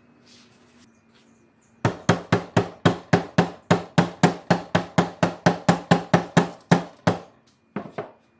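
A hammer striking metal in a quick, even series of about two dozen blows, roughly four or five a second, then two more blows after a short pause near the end.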